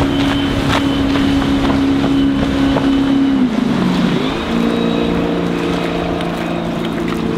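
Volvo Penta 5.0 GXi V8 sterndrive of a Rinker 230 Atlantic sportsboat running at planing speed, a steady engine drone whose pitch drops about three and a half seconds in as the boat passes and heads away.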